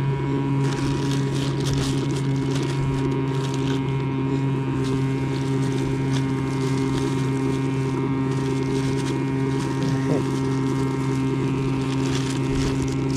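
Thin plastic bags rustling and crinkling as they are gathered up and handled, over a steady low engine hum that does not change.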